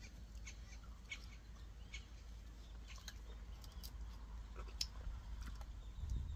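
Faint outdoor background: a low steady rumble with scattered small sharp clicks.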